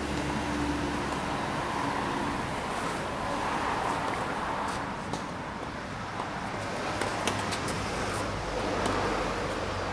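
Steady outdoor background noise, a low rumble and hiss like distant traffic, with a few faint sharp taps in the second half.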